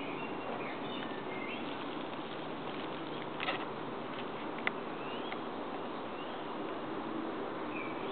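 Steady outdoor buzzing drone of insects, with a few short high chirps and two brief sharp clicks, about three and a half and nearly five seconds in.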